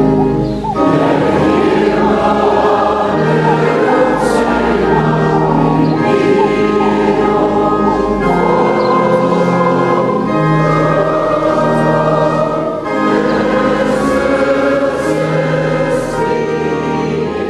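A choir singing slow, sustained chords that shift every second or two.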